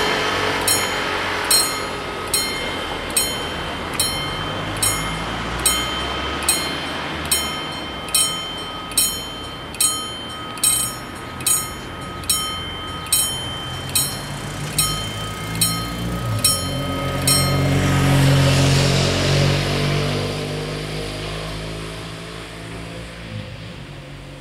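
Level-crossing warning bell striking at a steady pace, about five strikes every four seconds, while the barriers are down. It stops suddenly a few seconds before the end. Then a car engine comes close, louder and rising in pitch, and dies away as the car slows to wait at the closed crossing.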